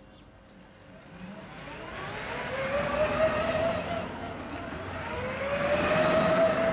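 Electric drive motor of a Tembo 4x4 e-LV, a battery-electric Toyota Land Cruiser pickup, whining and rising in pitch twice as the truck pulls away and drives past, with tyre noise on brick paving growing louder as it nears.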